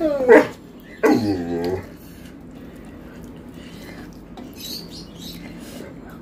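Dog vocalizing twice while begging for food: a short whine that falls in pitch, then about a second later a longer, lower moaning whine.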